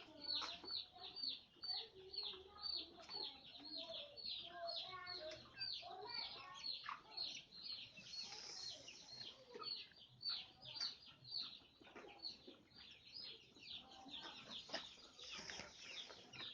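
A poultry flock calling together: a dense, unbroken stream of short, high, falling peeps, several a second, with lower clucks scattered among them.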